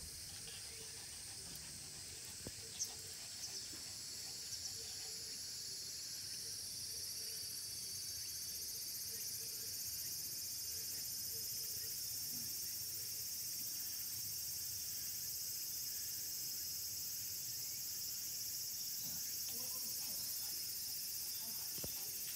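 Steady high-pitched insect chorus shrilling in the background, growing denser about six seconds in, with a few faint ticks in the first few seconds.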